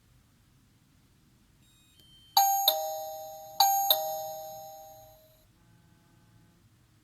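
Doorbell chime sounding a two-tone ding-dong twice, a higher note then a lower one, the second pair about a second after the first. Each pair rings on and fades away over a couple of seconds.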